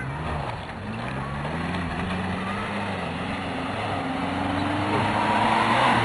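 BMS Ranch Pony 1000 side-by-side UTV driving on a dirt trail, its engine running under throttle with the pitch rising and falling. It grows louder toward the end as the vehicle comes closer.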